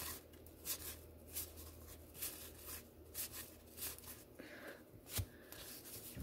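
Baseball trading cards being flipped through one at a time in the hands: soft, irregular flicks and slides of card stock, roughly two a second, with a sharper flick about five seconds in.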